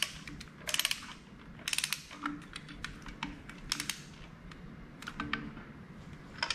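Sharp metallic clicks and short ratcheting clatters in irregular groups, as metal engine parts and tools are handled.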